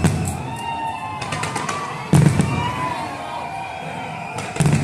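Fireworks display exploding: deep booms about every two seconds, each with a crackle, and a quick cluster of sharp cracks in between.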